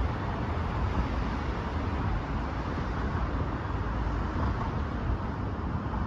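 Steady outdoor noise: wind on the microphone over a continuous low rumble, with no distinct event.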